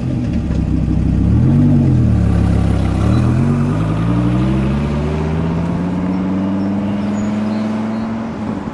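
Dodge Viper V10 engine, just started. It revs up once and settles, then climbs steadily in pitch as the car accelerates away.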